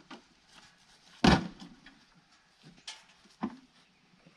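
Black cement-mixing pans used as feed pans being picked up and knocked together: one loud thump about a second in, then two lighter knocks near the end.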